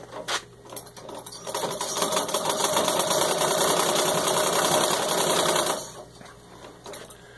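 A 1919 Singer 127 Sphinx sewing machine stitching through six layers of denim: a few light clicks, then about four seconds of rapid, steady mechanical clatter from the needle bar and mechanism, which then stops.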